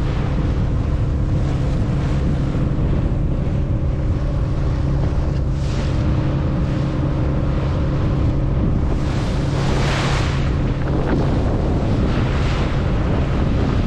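Fishing boat's engine running steadily, with wind buffeting the microphone and the wash of sea water against the hull swelling up now and then, most strongly about ten seconds in.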